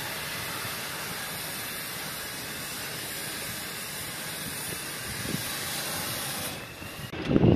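Fire hose nozzle spraying a jet of water: a steady loud hiss of spray. It thins out near the end, where a louder low rumble cuts in.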